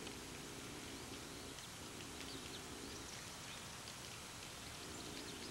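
Faint outdoor ambience: a steady hiss with a low hum that comes and goes, and scattered short, high chirps from small birds.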